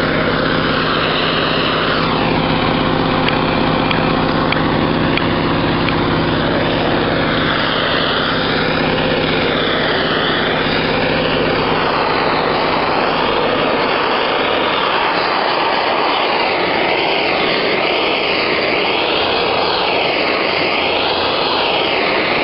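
Steady, loud running noise of wheel-straightening equipment: a hum with a low steady pitch, under a rushing noise. The hum drops away about thirteen seconds in while the rushing goes on.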